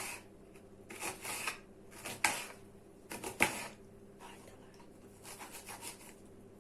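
Knife dicing a dry onion: a run of irregular cuts and taps, the sharpest about two and three and a half seconds in.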